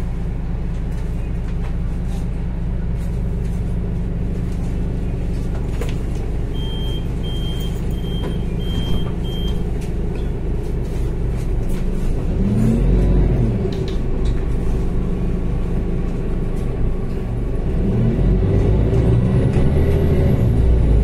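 Solaris Urbino 12 IV Mild Hybrid city bus heard from inside the passenger cabin: the engine idles steadily, with a run of five short beeps in the middle. Later the engine note rises and falls as the bus pulls away, climbing again near the end with a faint high whine over it.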